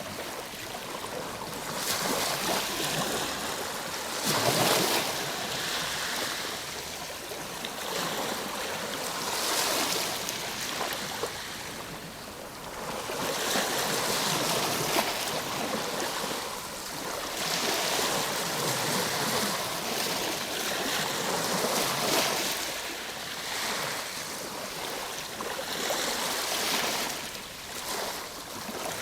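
Ocean waves breaking and washing in, a continuous rush that swells and fades every few seconds.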